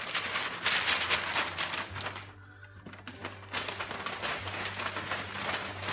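Stiff white paper rustling and crinkling as it is worked under an upside-down plastic bucket on a concrete floor and then lifted and turned over with it, in two spells with a short lull between.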